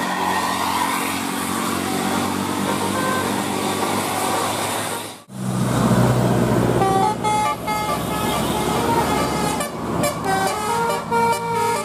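Bus engine and traffic noise, then, after a sudden cut about five seconds in, a bus engine running and, from about seven seconds, a telolet (Basuri multi-tone) bus horn playing a tune of stepped notes.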